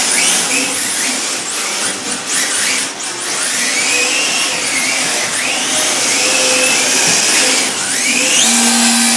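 Electric motors of two radio-controlled drift cars whining, the pitch rising and falling again and again as the throttle is worked through the corners.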